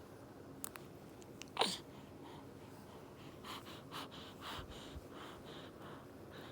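A baby's short squeak that slides quickly down in pitch about a second and a half in, followed by several soft, breathy little sounds.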